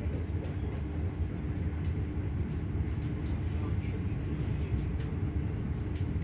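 Class 385 electric multiple unit running steadily at speed, heard from inside the carriage: a continuous rumble with a steady motor tone and a few faint clicks.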